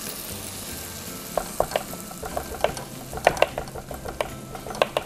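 Chef's knife chopping raw fish on a plastic cutting board: irregular sharp taps, several a second, starting about a second and a half in. Underneath is a steady hiss of a pan frying.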